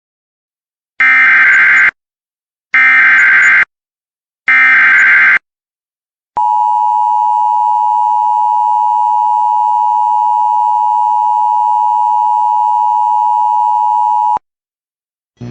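Emergency Alert System SAME header: three short bursts of buzzing data tones, about a second each, followed by a steady single-pitch attention tone held for about eight seconds before it cuts off. Together they herald a National Weather Service warning broadcast.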